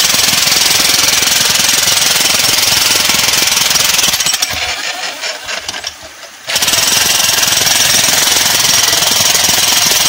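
Corded electric demolition hammer chiselling into rock in a steady, rapid hammering. About four and a half seconds in it slows to separate blows and stops for about two seconds while the bit is repositioned, then starts hammering again at full rate.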